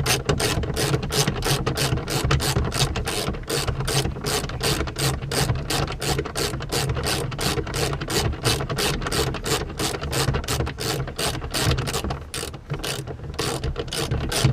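Socket ratchet clicking steadily as a grab-handle bolt is snugged up, about four clicks a second, with a short slowdown near the end.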